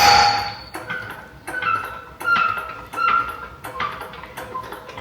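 Jack being moved into place: a loud metal clank that rings on briefly, then a run of shorter metallic clinks and squeaks.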